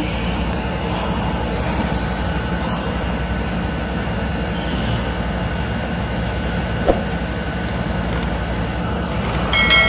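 Steady low hum and hiss of room noise, with a single sharp click about seven seconds in and a brief cluster of high tones near the end.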